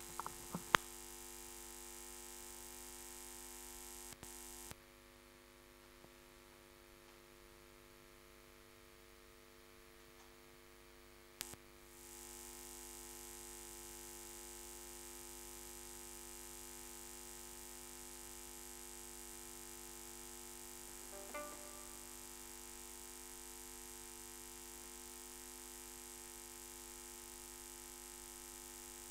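Quiet, steady instrumental drone of several held pitches, with a few faint clicks near the start.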